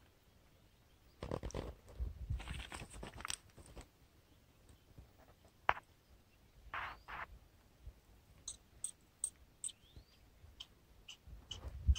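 Faint, scattered crunching and rustling handling noises as a hooked rohu is lifted on the line and grabbed by hand, with one sharp click about halfway through and a string of short, high chirps in the second half.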